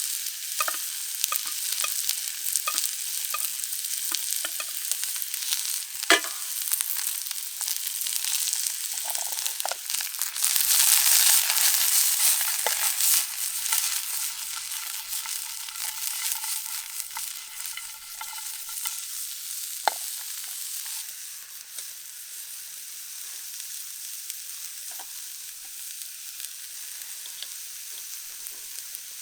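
Onions sautéing in a hot pan, sizzling steadily, with scattered clicks of a utensil stirring against the pan. The sizzle swells about a third of the way through, then settles lower toward the end.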